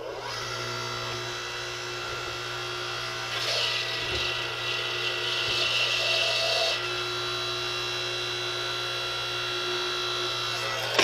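The electric motor and hydraulic pump of a DR 5-ton electric log splitter run with a steady hum as the ram presses into a large round of unseasoned wood. From about three and a half to seven seconds a louder, harsher strain rides on top of the hum. Right at the end come the first sharp cracks of the wood giving way.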